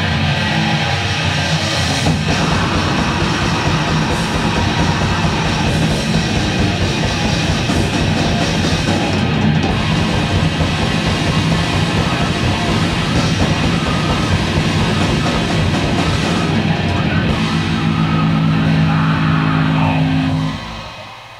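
A grindcore band playing live at full volume, distorted electric guitar over drums, ending on a held guitar chord that cuts off about a second before the end.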